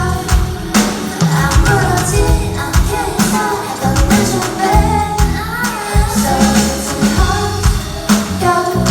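A pop song performed live: a singer's voice over a band with a steady beat and heavy bass.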